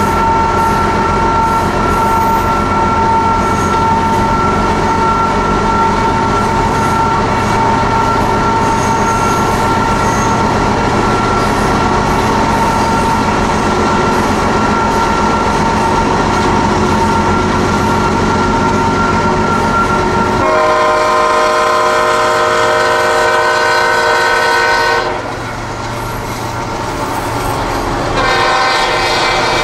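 Freight train with diesel locomotives rolling past at speed, heard from a car pacing it. About two-thirds of the way through, the lead locomotive's horn sounds a multi-note chord for about four seconds, then blows again near the end.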